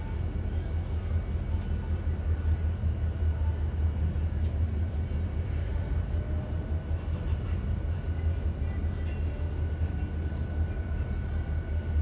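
Diesel locomotive approaching from a distance: a steady low rumble of its engine.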